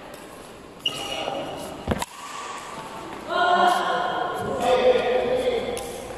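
Badminton play in a sports hall: a sharp smack of racket on shuttlecock just under a second in, then a heavier thud just before two seconds. A second later raised voices call out loudly for about two seconds as the point ends.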